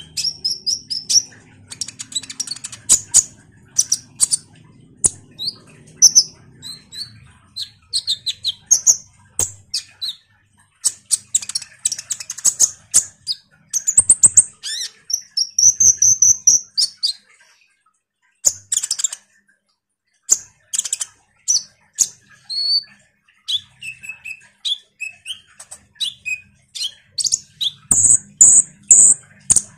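A kolibri ninja (konin) sunbird singing a fast, chattering run of high chirps and short trills, in the lively full song that keepers use to provoke other males to answer. There is a brief pause a little past halfway.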